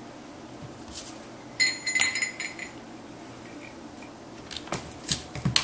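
Light jingling clink, about a second and a half in and lasting about a second, as a puppy paws and mouths at a toy hanging from a plastic laundry basket; a few scuffing clicks follow near the end.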